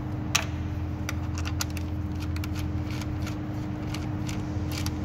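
A 10 mm socket wrench clicking as it unscrews the bolts that hold the ignition coils on a Kia Cerato engine: about a dozen short, sharp metal clicks at uneven spacing. A steady low hum runs underneath.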